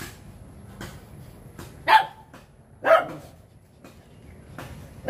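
A dog barking: two loud barks about a second apart, then a third just at the end.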